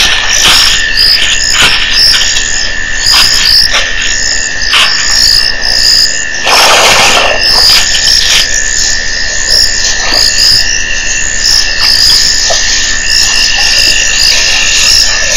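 A night chorus of frogs at a waterhole: short high calls repeating a few times a second over a steady high whine, with a harsher noisy burst lasting about a second, about seven seconds in.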